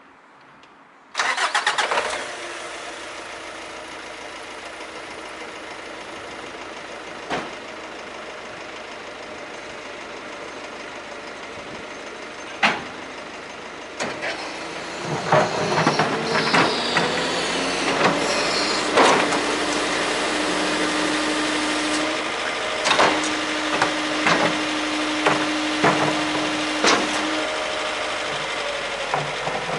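Nissan Cabstar 45.13's 2.5-litre four-cylinder diesel (YD25DDTi) starting about a second in, then idling steadily. From about halfway it runs louder as the Provence Benne hydraulic bin lifter works: a held steady whine, gliding tones and repeated metallic clanks as a wheelie bin is lifted and tipped at the rear.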